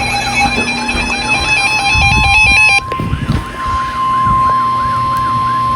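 Emergency alert attention signal: a siren-like tone wailing up and down about two and a half times a second, with a high electronic beeping pattern over it that stops about three seconds in. A steady alert tone joins about a second in and holds to the end.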